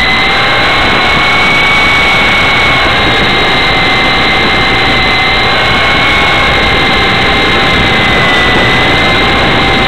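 Blade CX2 electric coaxial RC helicopter in flight, heard from the camera it carries: a steady high whine of the electric motors and gears over rotor noise, its pitch wavering slightly.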